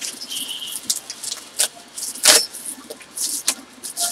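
Packing material crinkling and rustling as hands dig through a small cardboard box, in irregular crackly bursts, the loudest about two seconds in.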